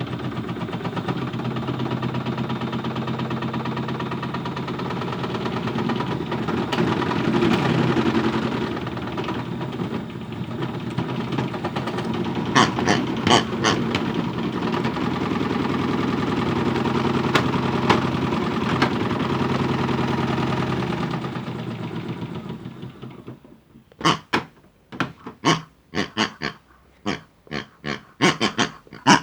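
Small motor of a toy washing machine running, its drum loaded with hard objects that rattle and knock against it. It winds down and stops about three quarters of the way in, followed by a run of short, separate sounds.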